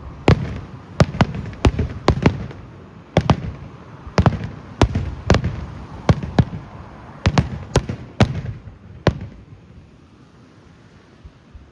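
Fireworks going off: a run of sharp bangs, irregularly spaced about one or two a second, that stops about nine seconds in.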